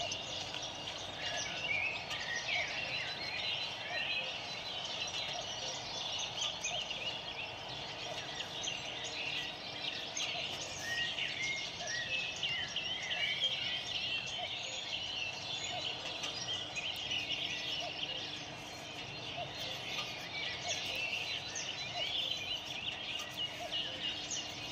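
A dense chorus of many small birds chirping and twittering without a break.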